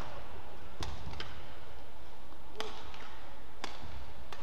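Badminton rally: sharp cracks of racket strings hitting a feather shuttlecock, about five in all, roughly a second apart, over the low hum of an arena.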